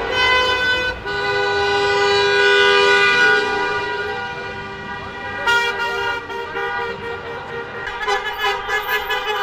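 Several car horns blowing long, overlapping blasts as a line of cars drives past, with a fast pulsing sound starting near the end.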